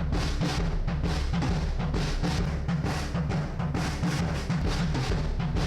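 Recorded acoustic drum kit playing a steady beat, heard through the mono room microphone that carries the kit's natural room reverb. It is EQ'd with a low cut and a little added brightness up top, with hits several times a second over a strong low end.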